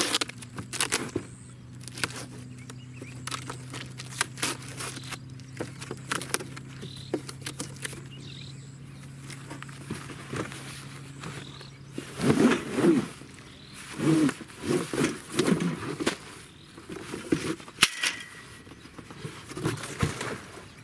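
Cardboard box handled and the folded metal frame of a pop-up gazebo slid out of it: rustling and knocks, then, a little past halfway, a run of loud, short, pitched scrapes as the frame drags against the cardboard. A steady low hum runs underneath and stops at about the same moment.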